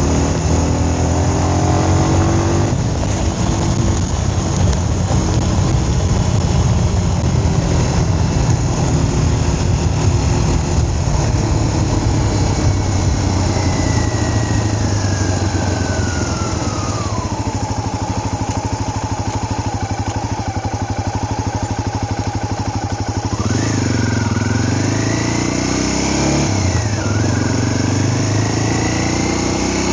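Vehicle engine running while under way, with a steady rush of noise. Its pitch shifts with speed: a long fall in the middle, then rises and dips about 24 and 27 seconds in, as with gear changes.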